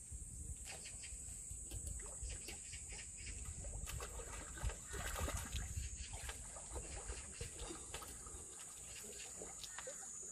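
A fish splashing and swirling at the pond surface, loudest about halfway through, over a steady high-pitched insect sound.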